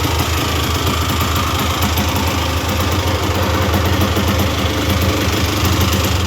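Freshly restored 1986 Honda ATC250R's 250cc two-stroke single-cylinder engine idling steadily.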